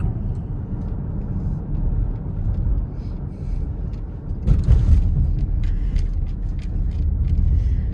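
Steady low road and engine rumble of a moving car, heard from inside the cabin. About halfway through there is a brief louder rush.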